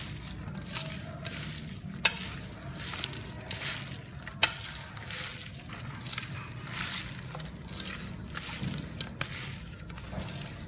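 Hands mixing raw chicken pieces with shredded lemongrass and citrus leaves in a stainless steel bowl: repeated wet squishing and rustling strokes. Two sharp knocks on the bowl stand out, about two seconds in and again about four and a half seconds in.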